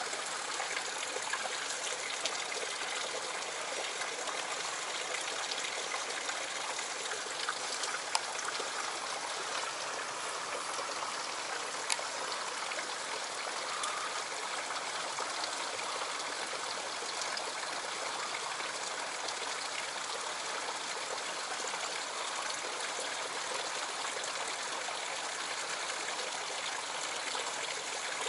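Stream water rushing steadily over rocks and a small cascade in a narrow rock channel, with a few faint clicks here and there.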